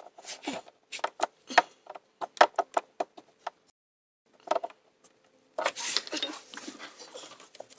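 Plastic clicks and knocks as a stuck hose is pried and twisted off the charcoal canister with a forked trim-removal tool, followed about two thirds of the way through by a longer scraping rub of plastic as the hose is worked loose.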